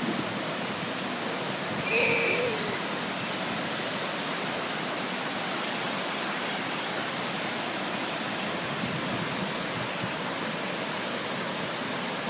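Steady rushing of a waterfall pouring into a pool. About two seconds in, a short high-pitched call rises briefly above it.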